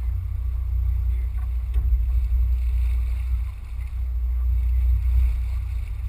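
Low rumble of wind buffeting the microphone, wavering in gusts, with a brief lull about three and a half seconds in.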